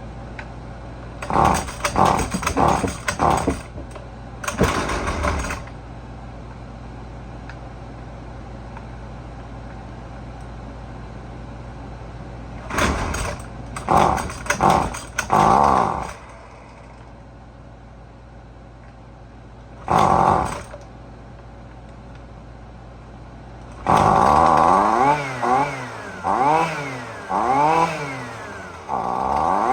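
Husqvarna 128LD string trimmer's small two-stroke engine being pull-started: four short, loud spells of cranking and sputtering, then about 24 seconds in it catches and runs, revving up and down about once a second. This happens while its carburetor's low-speed mixture is being adjusted to get it to start and idle.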